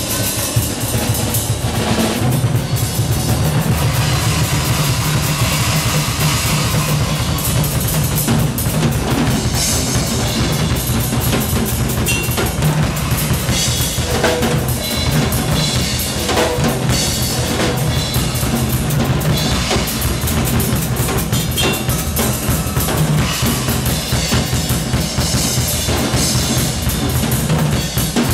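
Live drum kit playing a busy groove of bass drum, snare and cymbals, on a Yamaha kit, with a steady low bass sound held underneath.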